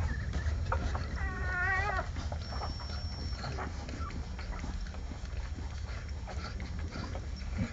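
Young American Staffordshire Terrier puppies nursing: scattered small suckling and smacking clicks, with one wavering high puppy squeal a little over a second in, lasting under a second.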